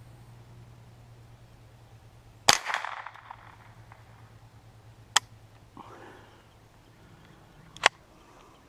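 Three sharp .22 rimfire shots from a Ruger 10/22 semi-automatic rifle, about two and a half seconds apart, the first the loudest with a short echo after it.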